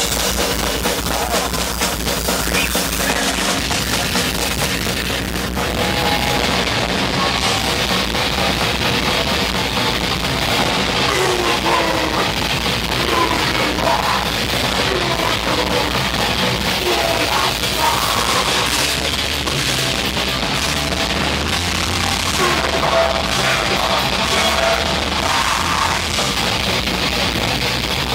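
Crust punk/grindcore band playing live at full volume: distorted guitars, bass and fast drums.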